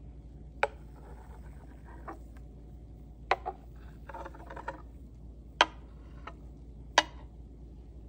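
Steel milk pitcher clicking sharply against a ceramic mug five times while steamed milk is poured in, with soft, faint pouring sounds between the clicks.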